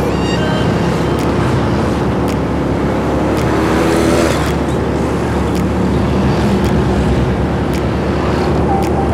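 Motorcycle riding along a road: its engine running steadily under wind noise, with traffic passing, an oncoming vehicle a little louder about four seconds in.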